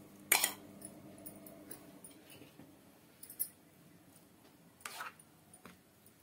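A metal spoon knocks against a metal pan once, loudly, about a third of a second in, as cooked grated beetroot is scraped out. After that come a few soft clinks and scrapes of the spoon in a bowl as the beetroot is stirred into yogurt.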